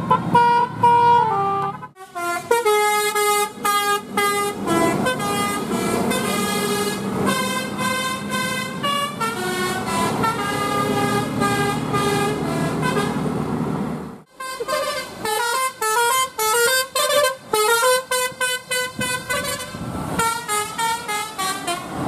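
Indonesian bus 'basuri' telolet horn playing quick melodic tunes, several notes a second jumping up and down in pitch. It cuts off abruptly about two seconds in and again about fourteen seconds in, restarting each time with a new tune.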